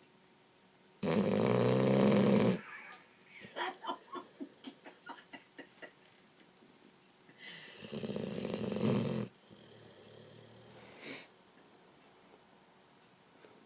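Loud snoring: two long snores about six seconds apart, with a run of short, quick puffs between them and a smaller snort a couple of seconds after the second snore.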